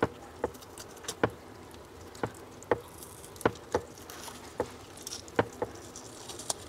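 About a dozen sharp, irregular clicks and light knocks as hands press and push a whole mud carp against a wooden chopping block, loosening the flesh from the skin for stuffing.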